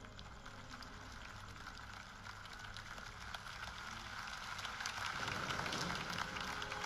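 Large crowd applauding: a dense patter of many hands clapping that swells steadily louder.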